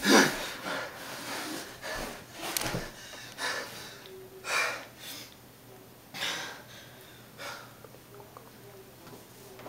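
A young man breathing hard, out of breath after a struggle: a run of heavy gasping breaths about a second apart, the loudest right at the start and fainter after about six seconds.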